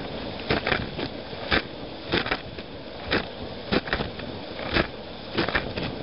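Water spraying inside a running dishwasher, heard from within the tub: a steady rush broken by sharp splashes and knocks about once or twice a second.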